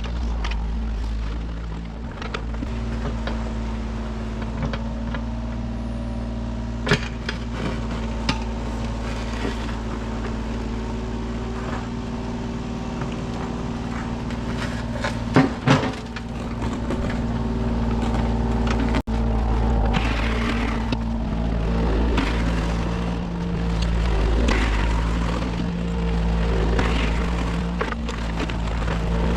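Kubota 33 mini excavator's diesel engine running steadily under hydraulic load, pitch and level swelling and easing as it works. A few sharp clanks of the bucket on rock and gravel, loudest around halfway.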